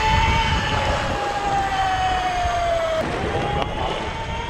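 Electric fishing reel motor whining as it winds in line. Its pitch sags slowly, breaks off about three seconds in, and resumes higher, over a steady low rumble of wind and boat noise.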